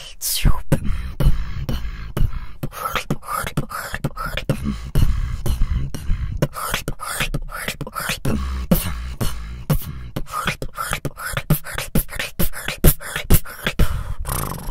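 A woman beatboxing: a fast, rhythmic run of sharp mouth-made snares and clicks over deep kick-drum and bass sounds.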